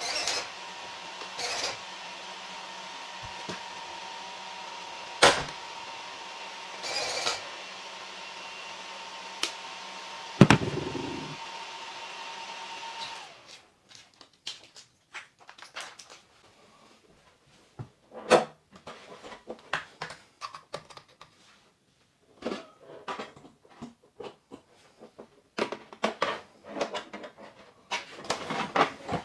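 Traxxas XRT's electronics cooling fans whirring steadily while the truck is powered, with a couple of sharp clicks, cutting off abruptly about halfway through as the battery is unplugged. After that, scattered clicks and plastic rattles of the truck and its body shell being handled.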